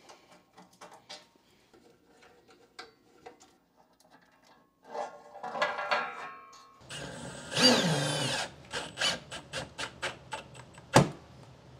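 Hand screwdriver working screws loose with faint clicks and scrapes, then a cordless power driver whirring up and down as it drives screws through a steel battery bracket into a plywood wall, followed by a string of short quick bursts and a sharp click near the end.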